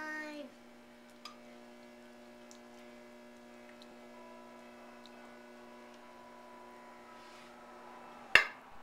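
Electric potter's wheel motor running with a steady hum made of several even tones. A single sharp click near the end, after which the lowest tone of the hum drops away.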